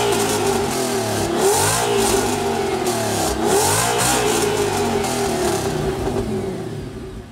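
Audi S6's 5.2-litre V10 engine with custom exhaust headers and an X-pipe, revved several times while stationary, the pitch swooping up and falling back with each blip. It then runs steadily and fades near the end.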